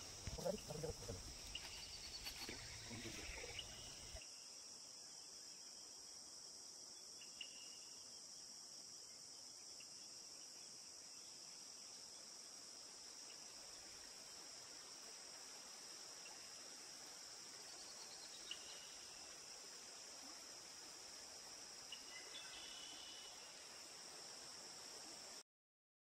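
Faint, steady, high-pitched chorus of crickets, with a low rumble for the first few seconds and a few short chirps scattered through; it cuts off abruptly near the end.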